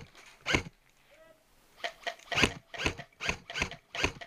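Airsoft gunfire: a string of about seven short, sharp cracks, roughly two a second, breaking off for about a second after the first.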